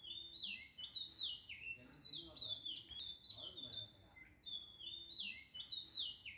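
Birdsong background track: short falling chirps that repeat in the same pattern about every three seconds, over a steady high, pulsing tone.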